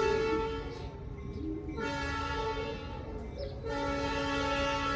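Background music of sustained chords, changing about every two seconds.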